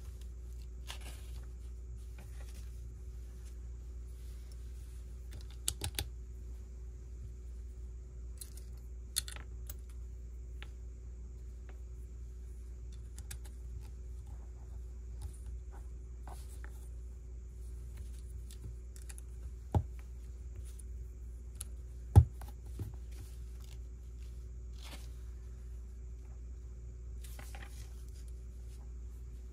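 Plastic Lego bricks being handled and snapped together: scattered light clicks and rustling, with a few sharper clicks, the loudest about two-thirds of the way through, over a faint steady hum.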